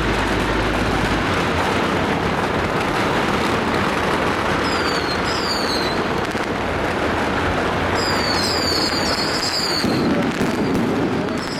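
A long string of firecrackers going off in a dense, continuous crackle. Short high falling whistles come through twice, around the middle and later on.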